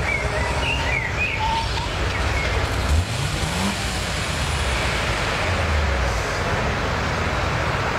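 Street traffic noise: a car engine running, with a steady low rumble and road hiss, its note rising briefly about three seconds in. A few short high chirps sound in the first second and a half.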